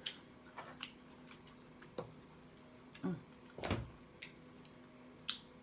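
Irregular sharp clicks and cracks of a cooked Dungeness crab's shell being pulled and broken apart by hand, with one louder, fuller crack a little past the middle.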